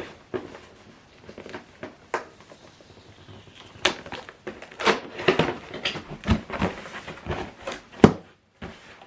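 Cardboard packaging of a portable speaker being opened and handled, with scattered knocks, scrapes and rustles and a sharp knock about eight seconds in.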